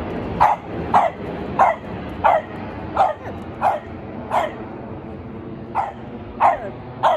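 A dog barking repeatedly, about one bark every two-thirds of a second, with a short pause about five seconds in.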